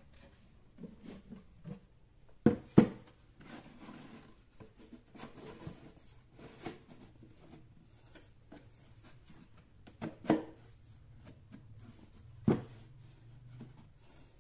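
Hollow PVC pipe handled on a tabletop: sharp knocks as the pipe is tipped over and set down, two close together about two and a half seconds in, another near ten seconds and one more near twelve and a half, with light rubbing and scraping of plastic in between.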